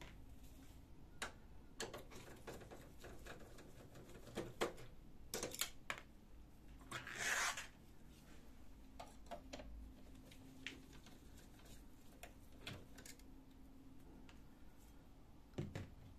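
Scattered light clicks and taps of hands and tools handling a laser printer's plastic parts, with a longer rustle about seven seconds in and a low knock near the end as a screwdriver is set down on the floor.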